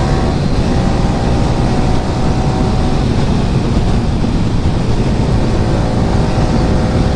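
Yamaha R15 V3's single-cylinder engine running through an Akrapovic aftermarket exhaust at a steady pace on the move, mixed with heavy wind rush on the microphone. The engine note holds steady, with no revving up or down.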